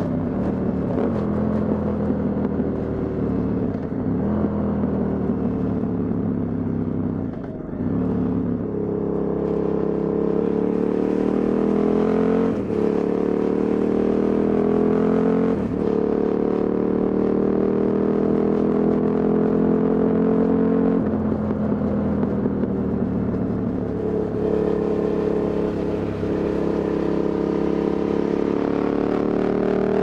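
KTM 990 Supermoto's V-twin with a Leovince SBK silencer, pulling up through the gears. The engine note climbs and drops sharply at several upshifts, eases off briefly about two-thirds of the way through, then climbs again.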